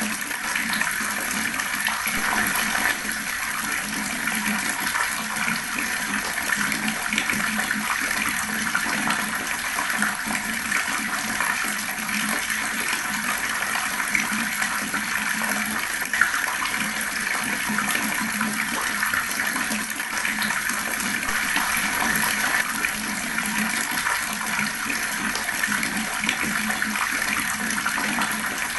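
Fast-flowing water running steadily, without a break.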